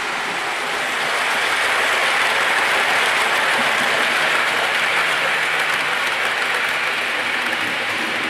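00 gauge model train of Pullman coaches running along the track: a steady hissing rush, swelling about a second in and easing off near the end.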